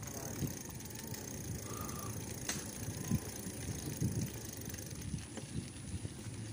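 Mountain bike rolling on a concrete road: a steady rumble from the knobby tyres, with a few small clicks and rattles from the bike.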